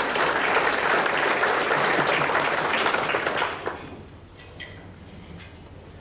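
Audience applauding, dying away a little over halfway through.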